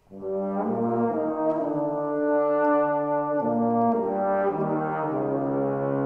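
Tenor and bass trombone playing a duet: after a brief silence both come in together about a quarter second in and hold long notes, moving to new pitches a few times.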